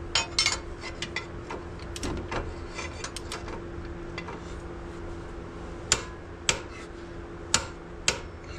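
Sharp metallic clicks and clinks of a torque wrench and pry bar on the wheel hub as the CV axle nut is tightened to torque, over a steady faint hum.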